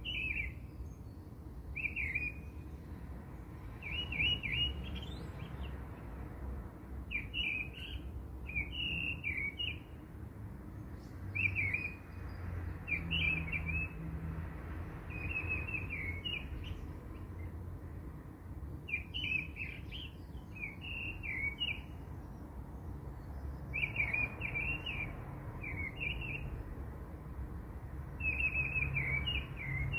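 Small birds chirping in short phrases of a few quick notes, one phrase every second or two, over a low background rumble.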